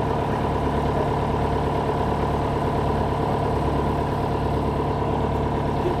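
Drill rig's engine running steadily: a constant, unbroken drone with a steady higher tone on top.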